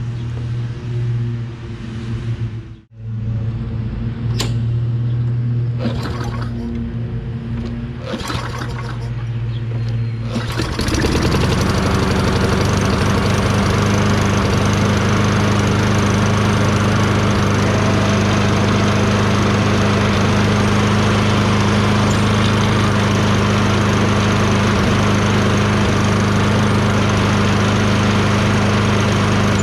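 Tecumseh 6.5 hp single-cylinder engine of a Toro Recycler self-propelled mower running after its carburetor's clogged pilot jet passage was cleaned, running much better. There is a brief break about three seconds in, and about ten seconds in it becomes louder and fuller, then holds steady.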